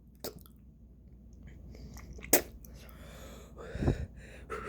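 A person chewing a mouthful of burger, with a few sharp wet mouth clicks and a low thump near the end.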